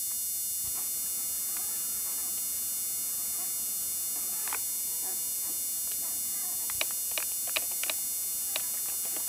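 Newborn Doberman puppies nursing, giving a few short, sharp squeaks in quick succession in the second half, over a steady electrical hum.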